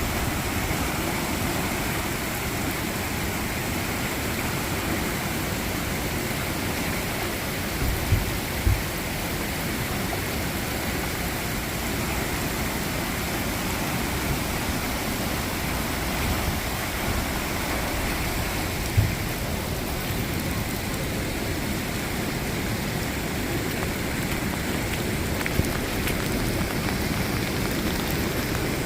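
Steady rain falling and splashing on surfaces, an even hiss throughout. A few short, dull low thumps break through it.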